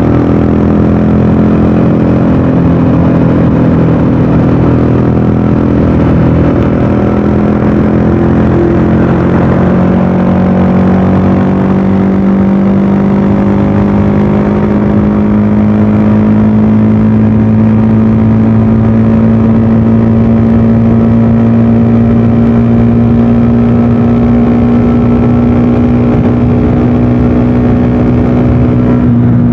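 VOGE 300DS motorcycle engine and exhaust running under load while riding, its note climbing slowly and steadily as the bike gathers speed.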